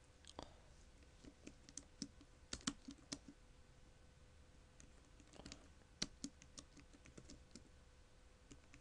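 Typing on a computer keyboard: faint, irregular key clicks in short runs.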